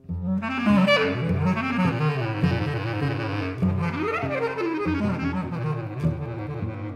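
Improvised jazz duo: a reed wind instrument comes in loudly and plays rising and falling runs over low cello notes. The dense passage breaks off near the end.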